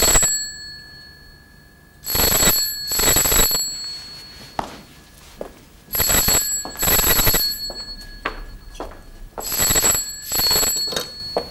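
Desk telephone bell ringing in the double-ring pattern, ring-ring, then a pause: three pairs about four seconds apart, an incoming call not yet answered.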